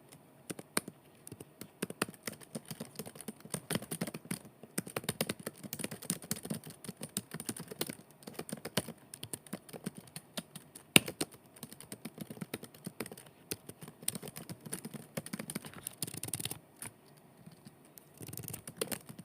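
Typing on a computer keyboard: fast, irregular runs of key clicks, with one louder clack about eleven seconds in and a short lull near the end before the typing resumes.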